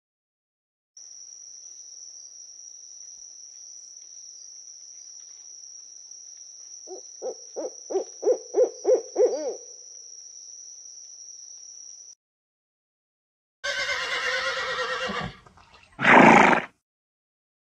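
A white-faced owl calling: a quick run of about ten low hoots, growing louder and faster, over a steady high insect drone. Then a horse whinnies, followed by a shorter, loud neigh near the end.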